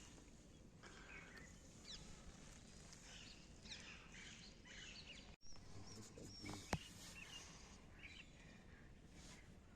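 Faint bird chirps over low outdoor background noise. The sound cuts out for an instant about halfway through, and a single sharp click follows a little over a second later.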